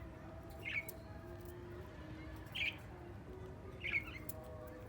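Ringneck parrot giving three short, high calls, spaced a second or two apart.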